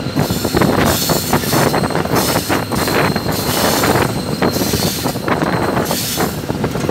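Old GE diesel-electric locomotive running along the track, with wind buffeting the microphone at the front of the engine and an irregular clatter of wheels on rail.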